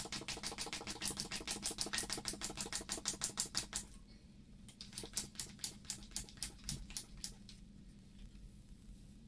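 Rapid, even ticking of a bicycle wheel's freewheel as the freshly fitted wheel spins, slowing and thinning out after about four seconds until it dies away.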